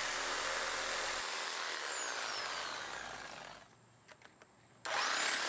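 Power tool running with a high whine, winding down and stopping about three and a half seconds in. After a second of near silence broken by a few light clicks, it starts again with a rising whine.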